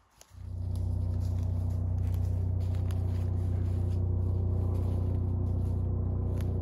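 Small chainsaw starting up about half a second in, then running steadily at an even speed without revving.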